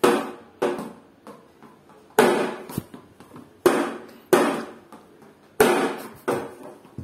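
Plastic toy cricket bat knocking on a tiled floor: about seven sharp hits at an uneven pace, several coming in quick pairs about two-thirds of a second apart.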